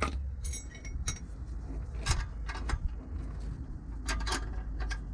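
Irregular metallic clinks and knocks as a steel exhaust clamp is handled and fitted over a joiner sleeve on a corroded van exhaust pipe. A few of the clinks ring briefly near the start.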